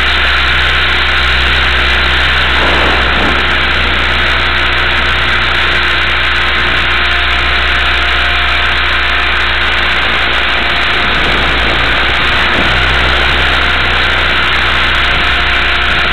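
Multiplex Funcopter's electric motor and rotor running steadily in flight, heard from on board the helicopter as a loud, even hiss with a faint hum under it.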